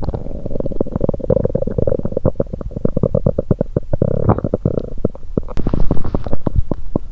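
Human stomach gurgling during a stomachache: a long drawn-out groan for the first five seconds or so, under rapid bubbling pops, several a second, that carry on after the groan fades.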